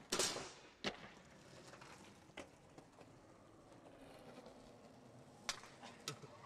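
Skateboard clacks on asphalt and wall: one loud clack with a short rattling tail right at the start, a sharp clack about a second in, a faint one midway, and two quick clacks near the end.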